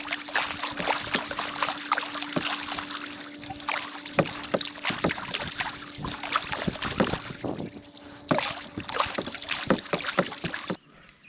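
Handling noise of an action camera being unclipped from a chest mount and fitted to a head mount: rapid, irregular clicks, knocks and rubbing right at the microphone, over a faint steady hum. The noise cuts off suddenly near the end.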